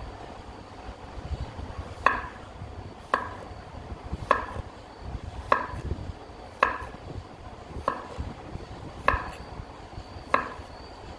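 Broad kitchen knife slicing garlic cloves on a wooden chopping board: eight sharp knocks of the blade striking the board, about one a second, starting about two seconds in. A low steady rumble runs underneath.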